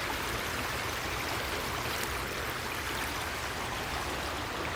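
The Arroyo Seco, a mountain creek, flowing steadily, an even rushing of water.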